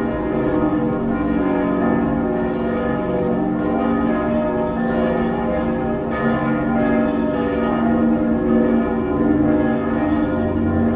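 Background soundtrack of ringing bells, with many bell tones overlapping in a steady, unbroken wash.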